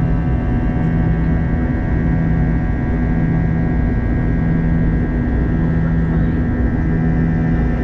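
Airbus A321-211's CFM56 jet engines heard from inside the cabin during the climb after takeoff: steady engine and airflow noise with a high whine and a low hum that pulses about once a second.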